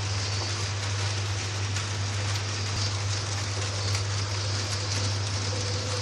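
Model trains running on the layout: a steady rolling rush of wheels on track with a constant electrical hum underneath, and a faint motor whine coming in near the end.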